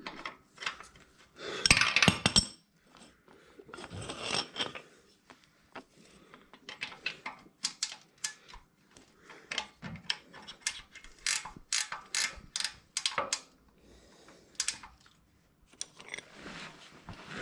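Socket ratchet wrench clicking in short, uneven runs, with a couple of louder metal rattles and clanks near the start, as bolts on a motorcycle's rear suspension linkage are worked loose.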